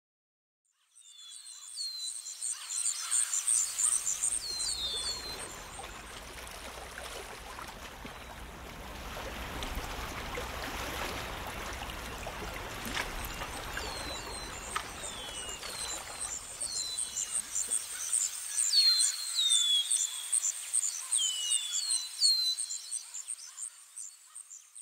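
Outdoor nature ambience: birds chirping in short falling calls over a steady, high, rapid trill like an insect's. A low rushing noise swells through the middle and then falls away.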